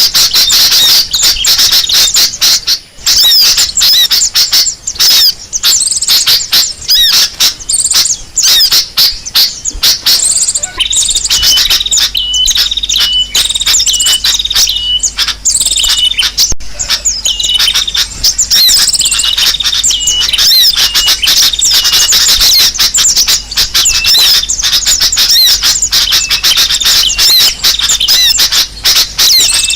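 Bird-lure recording of small birds chirping and twittering densely and without pause, a busy mix of quick high calls. About a third of the way in, a series of short, evenly spaced whistled notes joins the chatter.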